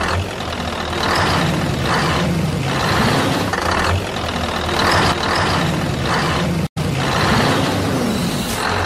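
Truck engine running with surges that repeat about once a second. The sound cuts out abruptly for an instant about two-thirds of the way through.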